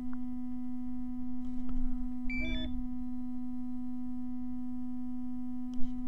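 RC radio transmitter in bind mode giving a short electronic beep sequence of several stepped pitches about two and a half seconds in, over a steady low electronic hum tone, with a sharp click near the end.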